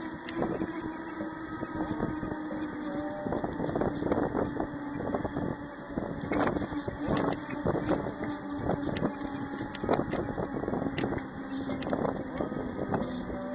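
Bicycle riding along a paved path, heard from a camera mounted on the bike: irregular rattles and knocks from the bike, wind on the microphone, and a steady low hum underneath.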